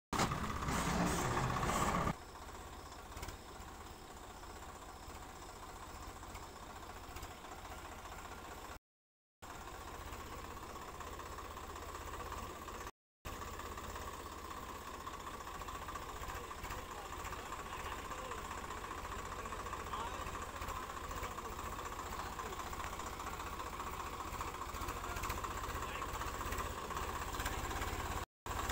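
Swaraj tractor's diesel engine running steadily as it hauls a loaded trailer. It is loudest for the first couple of seconds, then quieter, and grows slowly louder as the tractor approaches. The sound cuts out briefly three times.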